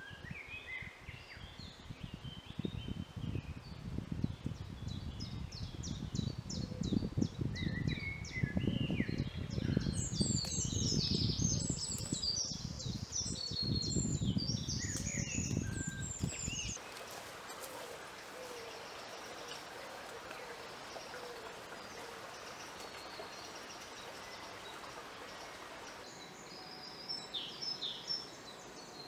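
Woodland songbirds singing, with a low rustle of footsteps through the undergrowth that grows louder as the walker comes closer. The rustle stops suddenly about two-thirds of the way in, leaving a faint hiss and a few scattered bird notes, with a short burst of song near the end.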